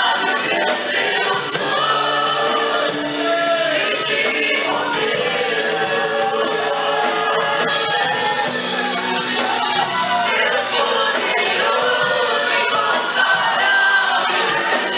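Choir singing a Portuguese-language Christian worship song over instrumental accompaniment.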